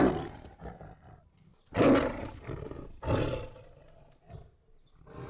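Tiger roaring: a roar trailing off at the start, two more about two and three seconds in, then fainter ones near the end.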